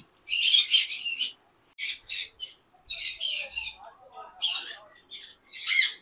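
Conure chicks giving a string of about eight short, harsh, raspy squawks, the first about a second long, the rest shorter and spaced irregularly.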